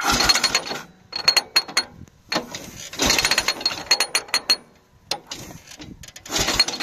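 Sokół 1000 motorcycle's gear-driven mechanism under the side cover, a toothed sector and spring, ratcheting in several bursts of rapid metallic clicks, each a second or so long.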